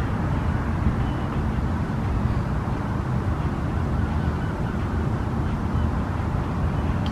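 Steady low wind rumble on the microphone, with a few faint, short bird calls.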